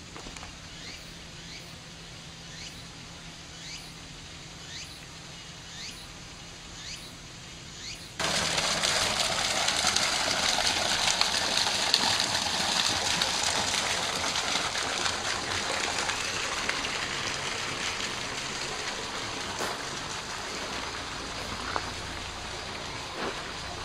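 Water jetting from a spout and splashing into a pond: a loud, steady hiss that starts abruptly about eight seconds in and slowly fades toward the end. Before it comes a quieter outdoor background with faint rising chirps about once a second.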